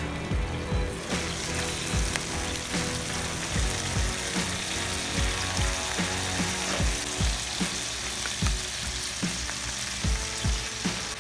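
Food sizzling as it fries in a pan, a steady hiss that gets louder about a second in, under background music with a steady beat.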